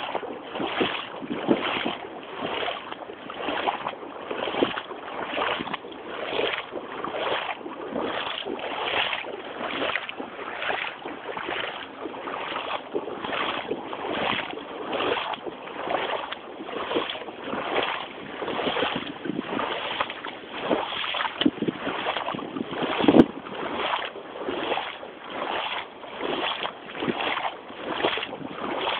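Rubber wellington boots wading through floodwater, a splash with each stride, about two strides a second. One sharper, louder splash or knock comes about three-quarters of the way through.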